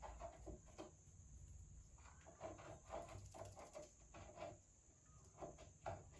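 Faint, short, irregular chirps and rustles from a baby Alexandrine parakeet, about ten soft sounds scattered through near silence.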